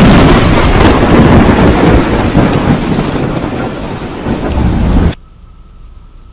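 Thunder from a very close lightning strike: a sudden deafening crack that rolls on as a loud rumble with rain, easing slightly, then cutting off abruptly about five seconds in. A much quieter hiss with a faint steady high tone follows.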